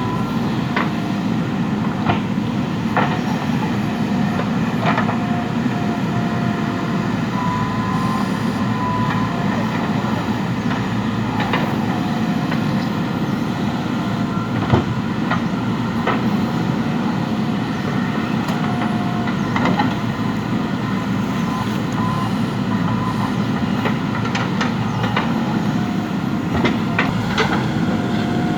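JCB 3DX backhoe loader's diesel engine running steadily under working load, with scattered sharp metal clanks and short high squeals from the digging arm and bucket.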